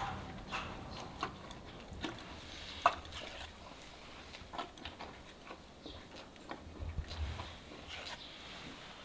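Quiet, scattered clicks and soft taps from a spatula pressing putty-like hoof packing onto a horse's hoof, with one sharper click about three seconds in.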